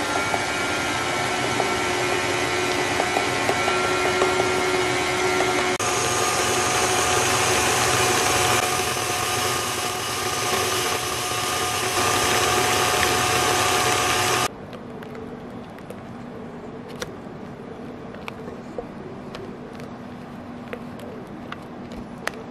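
KitchenAid tilt-head stand mixer's motor running steadily with a whine as its beater works cream cheese frosting in the steel bowl; the pitch steps up about a quarter of the way in as the speed is raised, and the motor cuts off suddenly about two-thirds through. After that come faint light taps and scrapes of a silicone spatula against the steel bowl.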